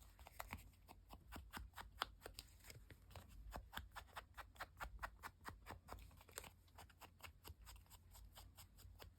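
Chalk ink pad dabbed repeatedly against the edges of a paper tag: a long run of faint, quick taps, several a second.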